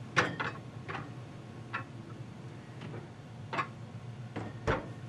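A handful of light clicks and knocks at uneven intervals, about seven in all, as glass beer bottles are handled and set down.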